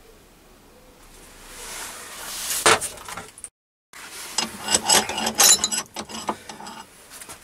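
Small metal parts being handled: a rustle building to a few clicks, a short dead gap, then a run of irregular clinks and rattles as steel pieces and a drill are set down among metal swarf on the lathe bed.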